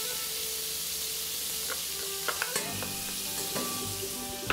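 Chopped garlic frying in hot olive oil, a steady sizzle, with a few light utensil taps about two and a half seconds in. The oil is hot enough that the garlic browns almost at once.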